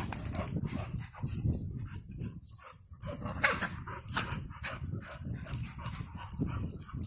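A pit bull and a bulldog wrestling in play: dog sounds amid the scuffling of their bodies and paws on the dirt, with a dip in loudness about midway.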